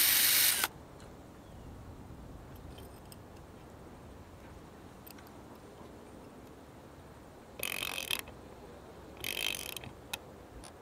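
A cordless drill running as it bores through a timber post, cutting off under a second in. After a quiet spell, a socket ratchet wrench clicks in two short bursts about a second and a half apart as an eye bolt is tightened, with a few faint clicks after.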